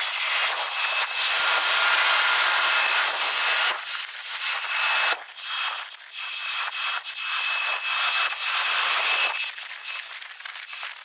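Jet airliner engine noise during a takeoff climb and a landing rollout, sped up fourfold into a high rushing hiss with faint whining tones and no low rumble. It breaks off abruptly about four and five seconds in.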